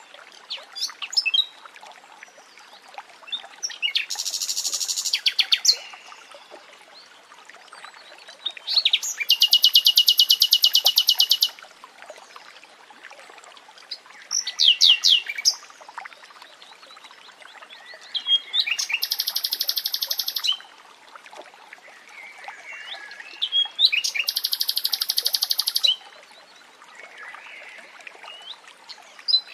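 Common nightingale singing in separate phrases every four to five seconds, several of them fast rattling runs of repeated high notes, others short whistled notes, over a faint steady stream of running water.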